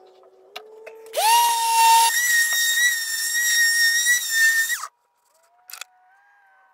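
Electric sander switched on about a second in, its motor running with a loud, steady high whine for about four seconds. The pitch jumps up about halfway, and the whine winds down quickly when it is switched off.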